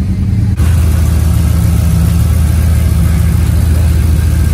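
Swapped LQ4 6.0 L V8 in a turbo BMW E36 idling steadily, freshly started and now firing on the driver's bank after a bad ground on the back of the head was fixed. About half a second in the sound changes abruptly, then the idle continues evenly.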